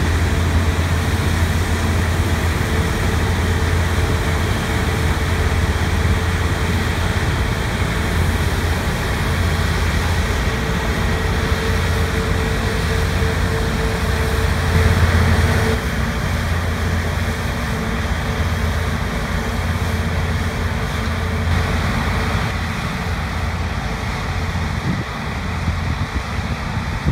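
Large farm machine's diesel engine and machinery running steadily, with a steady whine that stops about sixteen seconds in.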